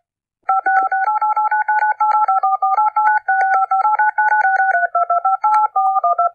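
Touch-tone (DTMF) keypad beeps of a phone dialing a very long number: a rapid, unbroken stream of short two-note beeps, several a second, the pair of pitches changing with each key.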